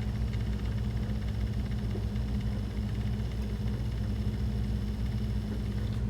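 Steady low machine hum, a constant drone made of several even low tones that does not change.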